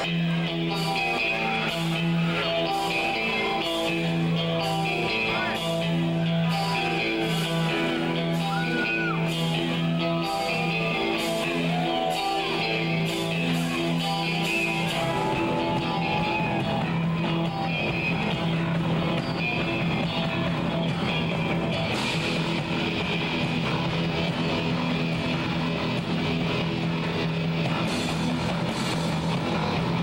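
Rock band playing live: electric guitars, bass guitar and drums, with a steady bass line and regular drum hits. About halfway through, the music grows fuller and denser.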